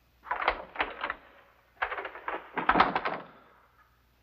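A door being opened and someone walking in: a run of knocks and clatters from the door and footsteps, loudest about three seconds in.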